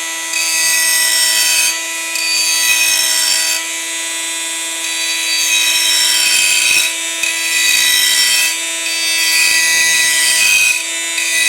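Homemade steel straight grinder, driven by a brushed DC motor, running at high speed with a steady whine while its small grinding stone is pressed against metal in repeated passes of a second or two each, a hissing grind that rises and falls with each pass.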